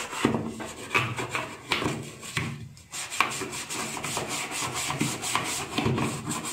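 A brush scrubbing dirt off the washing machine's parts in quick, repeated back-and-forth strokes.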